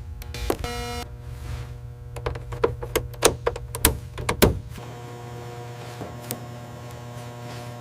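A run of sharp knocks and taps, clustered in the middle, over a steady low hum and held tones of background music.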